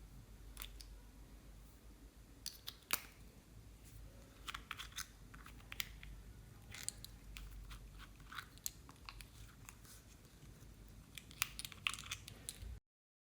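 Slime being squeezed and kneaded by hand, giving faint, irregular crackles, clicks and small pops. The sound cuts out abruptly near the end.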